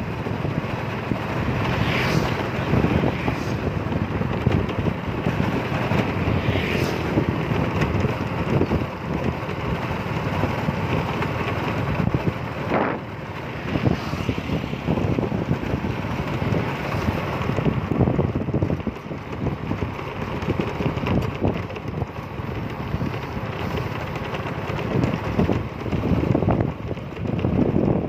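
Wind buffeting the microphone of a moving vehicle, with road and vehicle noise underneath: a steady rushing noise that swells and dips in gusts.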